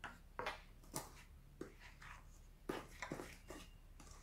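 Wooden spoon stirring thick cake batter in a stainless steel bowl, knocking and scraping against the bowl in faint, irregular strokes about every half second.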